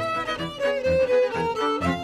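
Violin, clarinet and cello trio playing a klezmer bulgar: violin and clarinet carry the melody over a steady, pulsing bass line from the cello.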